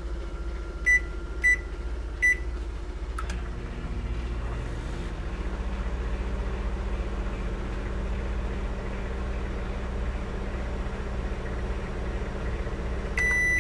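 Microwave oven: three short beeps, a click, then the oven running with a steady low hum. A long beep starts near the end.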